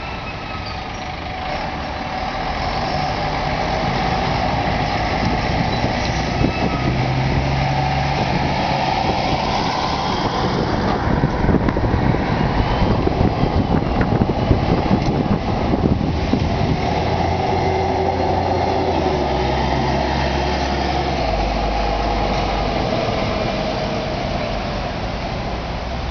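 Diesel engines of Ikarus city buses, one of them articulated, running as the buses drive past. The engine note steps in pitch several times as they change gear.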